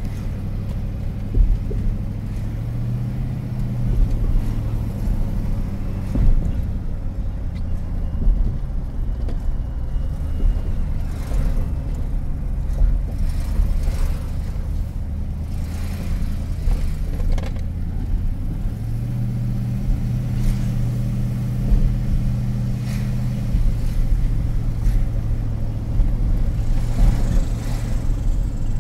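Chevrolet Silverado's LS-family V8 with an untuned stage 4 camshaft, heard from inside the cab while driving slowly: an uneven low rumble that picks up in revs twice, at about three seconds in and again for a few seconds past the middle. Untuned for the big cam, the engine runs rough and needs throttle held with one foot while braking with the other to keep it from stalling.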